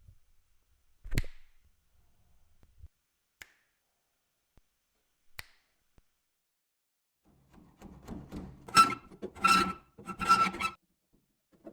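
A sharp knock about a second in, then three scraping strokes near the end, each under a second long and carrying a squeak.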